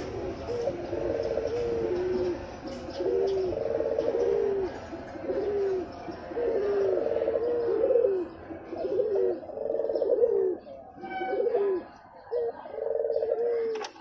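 Male ringneck dove (puter) bow-cooing in courtship: a long run of repeated rolling coos, each ending in a short falling note, with a brief pause a little after the middle before one more coo.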